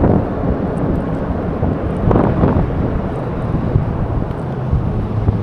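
Strong wind buffeting the microphone of a neck-mounted action camera, a steady low rumble with a brief louder gust about two seconds in, over a faint steady hum.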